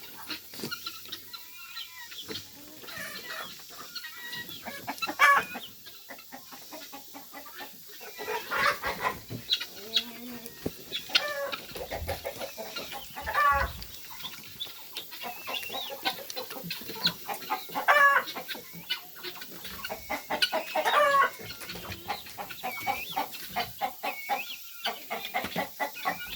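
A flock of chickens clucking, with a louder squawking call every few seconds.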